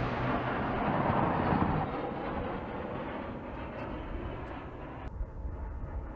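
Rumble of an A-10 Thunderbolt II gun run slowly dying away, made up of jet noise and echoes. The higher hiss drops out about five seconds in.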